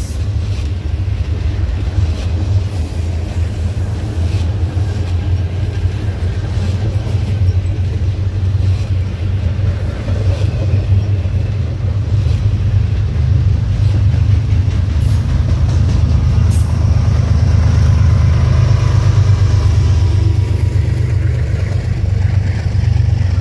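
Freight train of autorack cars rolling past close by: a steady, loud low rumble of wheels on rail, with scattered clicks as the wheels cross rail joints.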